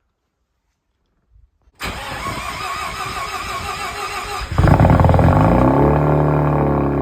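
Mazda RX-7 FD's twin-rotor rotary engine being started: the starter cranks for almost three seconds, then the engine catches with a sudden jump in loudness and its revs fall back to a steady idle.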